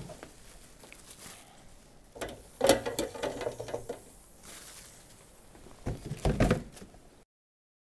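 Hot oil in a deep fat fryer sizzling and bubbling around a breadcrumbed scotch egg frying at 160 °C. There are two louder bursts of noise, one a few seconds in and one near the end, and then the sound cuts off suddenly.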